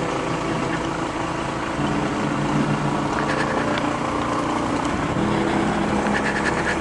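Honda ADV150 scooter's single-cylinder four-stroke engine running under way, its steady note shifting a couple of times with the throttle.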